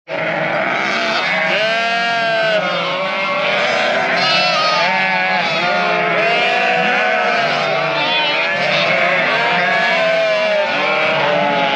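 A flock of Sönmez sheep bleating, many calls at different pitches overlapping without a break.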